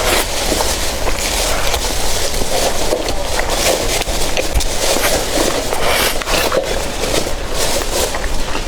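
Close-miked eating: chewing and crunching food in a rapid, irregular stream of short crackly strokes, over a steady low rumble.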